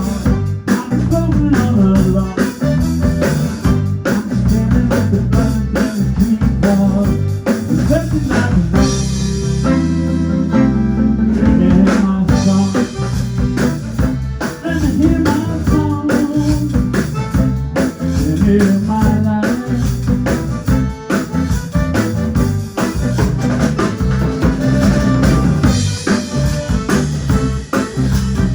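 Band music with a drum kit keeping a steady beat under guitar; the drums drop back briefly around ten seconds in.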